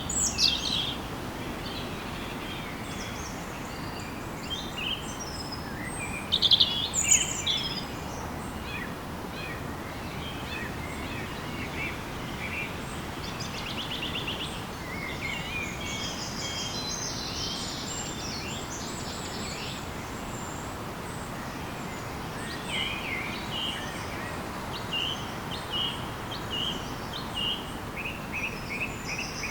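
Forest birds chirping and trilling on and off, the loudest calls about six to seven seconds in, over a steady background hiss.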